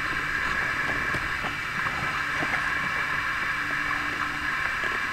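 Bow-mounted electric trolling motor running steadily, pushing a bass boat slowly up a narrow creek.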